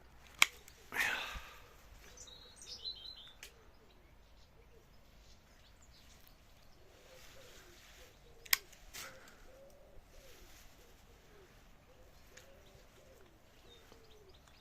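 Faint outdoor birdsong: a few high chirps early on, then a pigeon cooing softly through the second half. Two sharp clicks stand out, one right at the start and another about eight seconds in, with a brief rustle just after the first.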